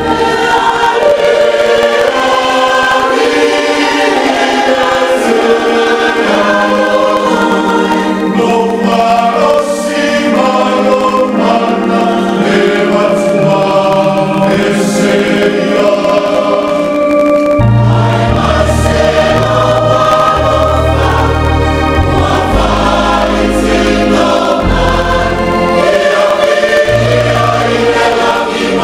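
Church choir singing a hymn in many voices, a deep bass part joining about two-thirds of the way through.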